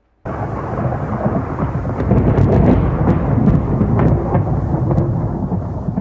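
Thunderstorm: thunder rumbling with rain, starting abruptly and growing louder about two seconds in, with several sharp cracks through it.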